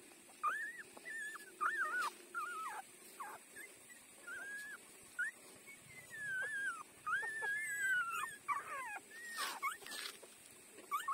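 Newborn puppies squeaking and whimpering while nursing: many short, high-pitched calls that bend up and down in pitch, one after another. A few soft clicks about two seconds in and again near the end.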